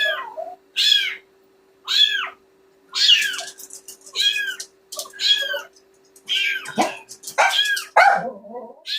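Young kitten meowing over and over, about one short high-pitched mew a second, each rising then falling in pitch.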